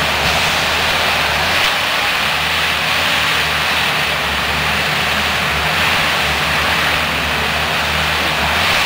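Komatsu 941 wheeled forest harvester's diesel engine running steadily with a low hum while the boom and harvester head work at the base of the trees.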